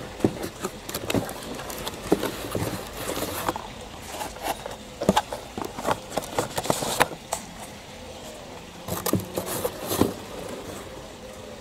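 Hands rummaging through corrugated cardboard packing inserts: a run of rustles, scrapes and sharp knocks, pausing for about a second before a last bunch near the end.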